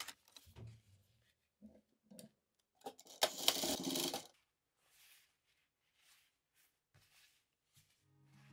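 Industrial sewing machine running a short burst of stitches, about a second long, with small clicks and fabric handling around it. Soft guitar music comes in near the end.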